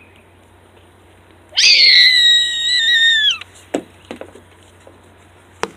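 Rubber duck squeaked once in a long squeeze: a steady high-pitched squeak lasting nearly two seconds that dips a little in pitch before it cuts off, followed by a few light clicks.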